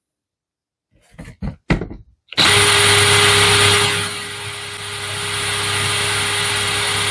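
A few small clicks, then a DeWalt 18V XR brushless cordless drill runs free with no load, a steady whir with a fixed whine, starting about two and a half seconds in; its sound drops somewhat about four seconds in, then holds steady.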